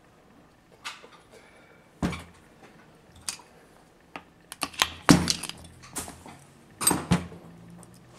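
Metal parts of a dismantled demolition hammer knocking and clinking against each other and the workbench as they are handled: a string of sharp, irregular knocks, the loudest about five and seven seconds in.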